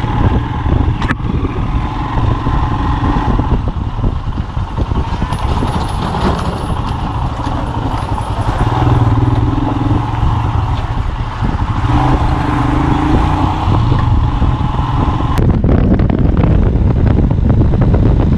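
Motorcycle engine running while riding, with steady road and wind rumble; the engine note rises and falls with the throttle.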